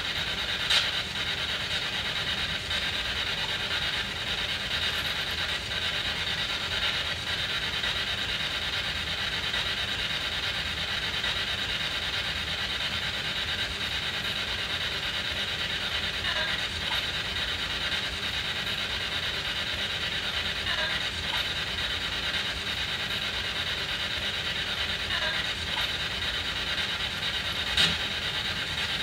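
SB7 spirit box sweeping through radio stations: a steady hiss of static with rapid chopping. Sharp clicks come about a second in and again near the end, and faint snatches of voice break through the static, which the hunters take for a spirit's reply.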